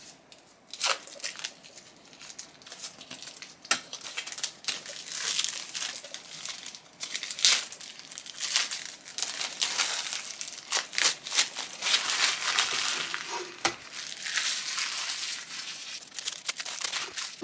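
Clear plastic wrapping crinkling and crackling in irregular bursts as it is pulled off a picture frame.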